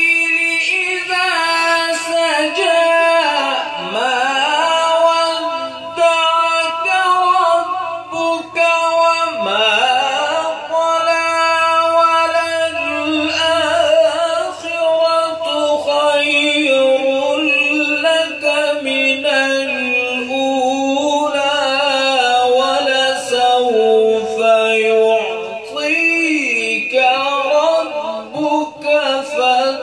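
A man reciting the Quran in melodic tajweed style into a handheld microphone, holding long drawn-out notes with slow pitch glides and ornaments. His voice dips low and climbs back twice in the first ten seconds, with only short breaks for breath.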